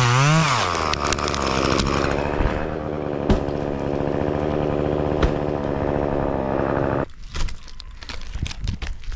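Stihl chainsaw coming off full throttle as it finishes a cut through a pine trunk. It drops to a steady idle about half a second in and cuts off abruptly about seven seconds in. Then scattered clicks and rustles follow as climbing gear and gloves scrape on the bark.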